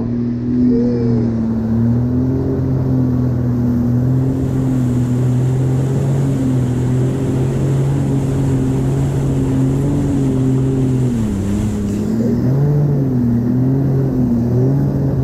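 Jet ski engine running at speed while towing, its note wavering up and down with the throttle over the rush of water and spray. The engine note drops briefly about eleven seconds in, then picks up again.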